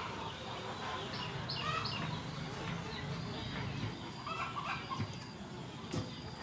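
Chickens clucking in short, irregular calls over steady outdoor background noise, with a single knock near the end.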